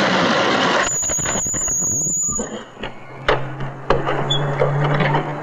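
A taxi's brakes squealing in a high, steady tone for about a second and a half as it pulls up. Its engine then idles with a low, steady hum, and a couple of sharp clicks come as a door opens.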